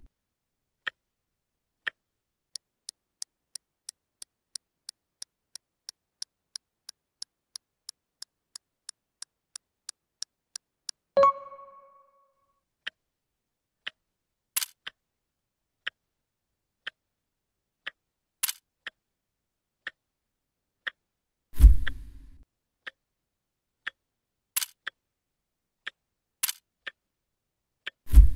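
Clock-ticking sound effect: sharp ticks about once a second, quickening to about three a second for several seconds, then a short ding about eleven seconds in, after which the slower ticking goes on. Two deep thumps, the loudest sounds, come about 22 seconds in and at the very end.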